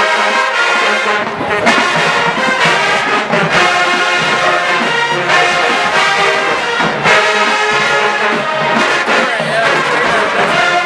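Brass-heavy show-style marching band playing a loud tune in phrases with brief breaks.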